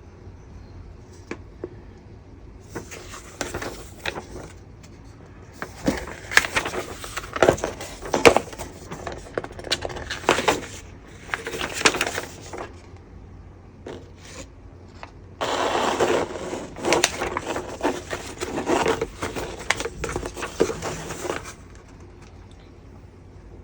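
Plastic bags of model-kit runners being handled, crinkling and rustling in three spells, with sharp clicks of the plastic parts knocking together.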